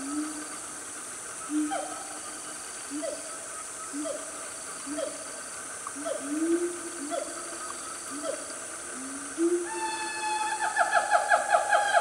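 Siamangs calling: repeated low whooping notes about once a second, each with a short falling bark above it. About ten seconds in, this builds into a fast, loud run of rising notes, several a second.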